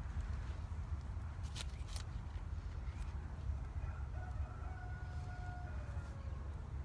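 A rooster crowing once, a long call that drops in pitch at its end, over a steady low rumble. A couple of sharp clicks come about a second and a half in.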